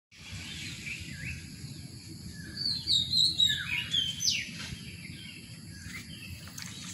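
Several birds calling in the trees: quick chirps and short falling whistled notes, busiest and loudest about three to four and a half seconds in, over a steady low rumble.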